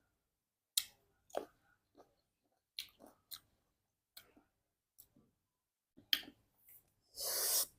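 Close-up mouth sounds of someone chewing fruit: scattered wet clicks and smacks, then a short hiss near the end.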